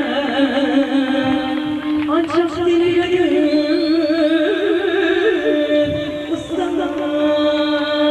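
Live band music with a woman singing into a microphone. The melody wavers and bends in ornamented runs over steady held notes.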